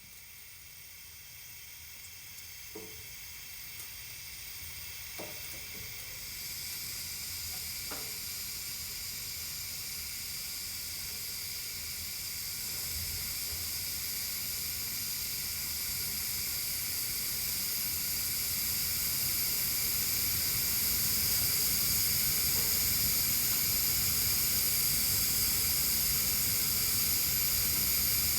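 Steady hiss of escaping gas that grows gradually louder, with a few faint ticks in the first several seconds.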